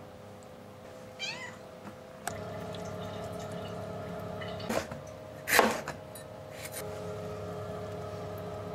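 A house cat meows once, a short rising call about a second in. Later a steady hum runs underneath, broken by two short loud noises near the middle.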